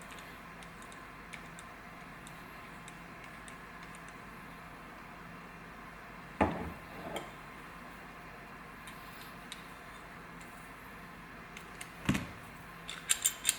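Small metal parts being handled during emergency brake handle assembly: faint ticks over a steady low hum, two sharp knocks several seconds apart, then a quick run of metallic clicks near the end.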